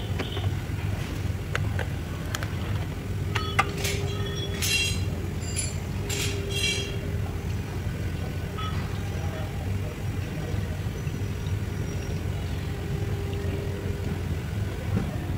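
Pink coolant being poured into a car's open radiator filler neck over a steady low mechanical hum. A few short ringing metallic clinks come between about four and seven seconds in.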